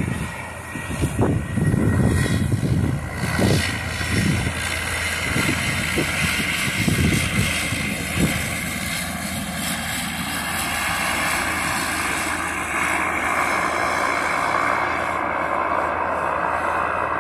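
Cessna Caravan's single turboprop engine running as the plane taxis past, a steady turbine whine over the propeller's drone, with low gusty rumbles in the first half.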